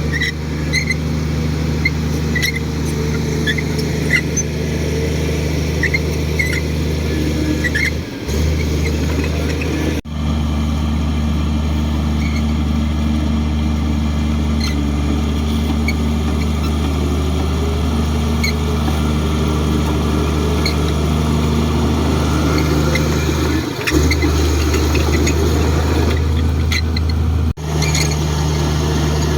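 Komatsu D58 bulldozer's diesel engine running steadily at a constant pitch, with short high squeaks in the first several seconds. The sound breaks off for an instant a few times.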